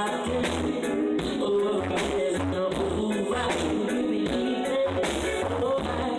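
Live reggae band playing over a stage PA at a sound check, with a steady, rhythmic bass line under guitar and keyboard parts.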